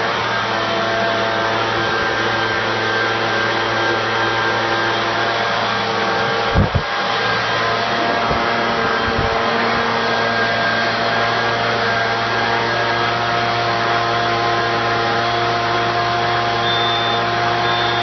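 A motor running at a steady speed with rushing air, used as a makeshift blow dryer. There is a brief low thump about six and a half seconds in.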